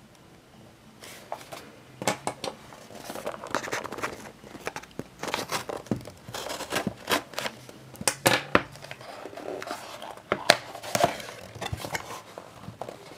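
A cardboard box being cut open and unpacked by hand: the sealing label slit with a blade, then the flaps and inner lid pulled open, giving a run of irregular rustles, scrapes and sharp clicks.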